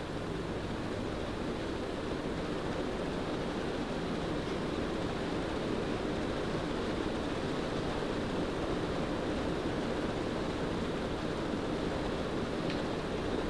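Casablanca Stealth DC ceiling fan running: a steady rush of air moved by its blades.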